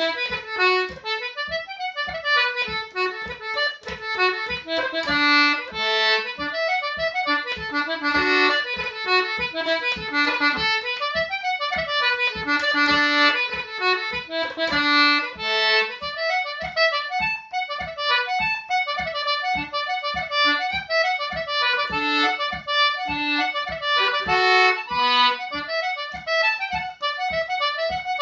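Solo concertina playing an Irish reel: a continuous quick run of reedy melody notes in an even dance rhythm.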